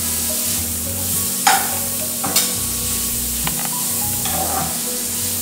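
Chopped onions sizzling in hot butter in a kadhai, stirred with a steel spatula that scrapes across the pan a few times.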